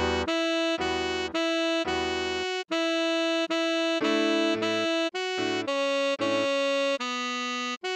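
Tenor saxophone playing a melody line in short notes and a few held ones, stepping around G#, F# and D#, with keyboard chords underneath.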